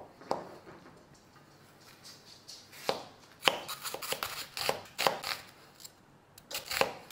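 Cleaver-style kitchen knife slicing a halved onion on a plastic cutting board: a few separate cuts at first, then a quicker run of cuts past the middle, and a couple more near the end.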